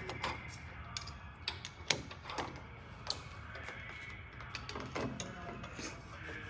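Scattered light clicks and knocks of metal hardware being handled on a toy hauler's ramp door (stabilizer leg pins and legs), over a steady low hum.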